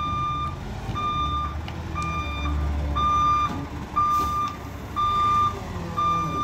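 Garbage truck's backup alarm beeping steadily, about one beep a second, over the truck's engine running. It gives only plain beeps instead of the truck's usual backup sound, which the filmer takes to be still messed up.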